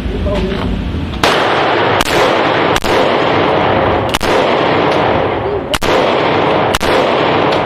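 Firearm shots at a shooting range: six shots fired at uneven intervals, the first about a second in, with loud echoing noise filling the gaps between them.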